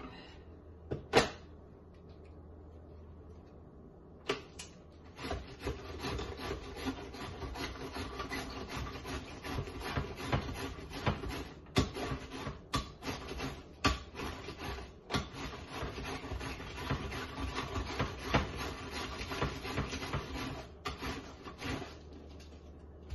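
Vegetables being grated by hand, a quick run of rhythmic rasping strokes against a grater with a few sharper knocks among them, after a single loud knock about a second in.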